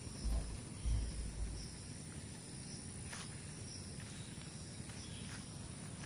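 Faint outdoor ambience with insects chirping faintly and briefly now and then, and a few low bumps on the microphone in the first second and a half.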